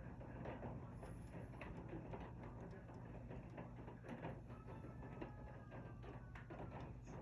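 Faint, irregular quick clicks and crackles of a fox squirrel cracking and chewing seeds at a bird feeder, over a steady low hum.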